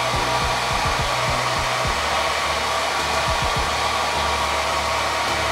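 Small handheld hair dryer switched on abruptly and blowing steadily: a rush of air with a steady whine over it.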